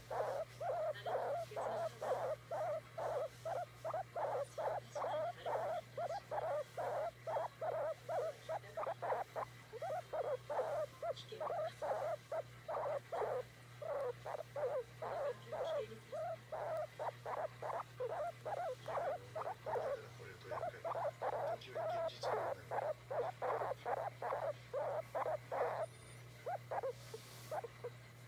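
Guinea pig giving short, clipped calls over and over, about two or three a second with brief pauses, while being stroked. A steady low hum runs underneath.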